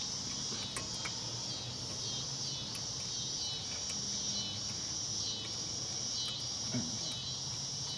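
A steady, high-pitched chorus of chirring insects, like crickets, with a few faint small clicks from brake pad hardware being handled.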